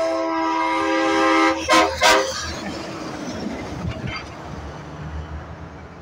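A semi truck's air horn, a multi-note chord like a train horn, held for about a second and a half, then two short, louder blasts. After that the truck's engine and tyres go by and fade away.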